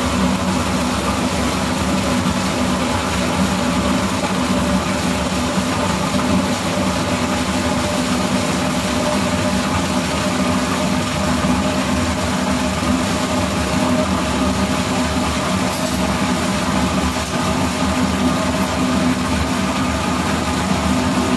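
Milking shed machinery running steadily: a constant hum with several steady tones that does not change.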